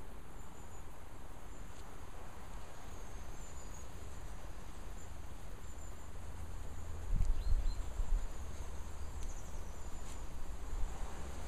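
Outdoor background noise: a steady hiss with a low, gusty rumble of wind on the microphone that swells about seven seconds in, and faint high chirps.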